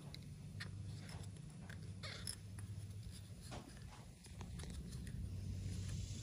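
Faint rubbing and small scattered clicks of fingers scrubbing out a metal carburetor float bowl wet with carb cleaner, over a steady low hum.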